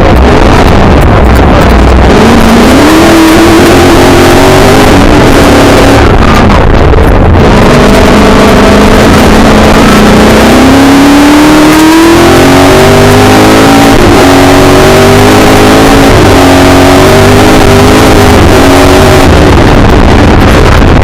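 Loud onboard sound of a Milner R5 racing car's 5-litre V8 engine, revving hard with its pitch climbing and dropping repeatedly as it accelerates and changes gear, over heavy noise from the wet stage.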